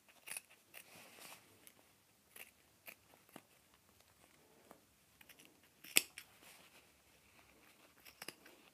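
Small scissors snipping the seam-allowance corners off a sewn fabric belt: a few faint, scattered snips, the loudest about six seconds in.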